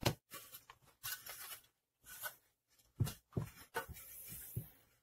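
Light clicks, taps and short rustles as the opened plastic housing of a HOLT HT-IR steam iron and its cord are handled, with a cluster of sharper clicks about three seconds in.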